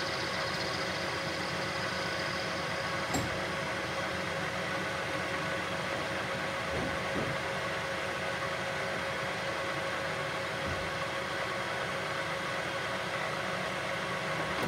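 Chester Cub 630 centre lathe running, its three-jaw chuck spinning a round metal bar while the tool takes a facing cut across its end: a steady machine hum with several held tones. A single sharp click about three seconds in.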